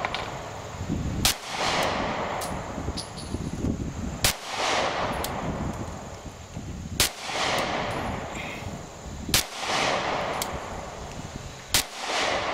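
Glock 43 9mm subcompact pistol fired five times in slow, aimed fire, about one shot every two and a half seconds, each sharp report followed by a brief echo. It is shooting 115-grain PPU ammunition and cycles without a malfunction.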